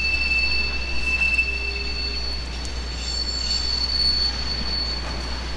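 Conrail freight train's tank cars rolling slowly past, their steel wheels squealing on the rail in two steady high-pitched tones over a low rumble. The lower squeal stops about halfway through and the higher one near the end.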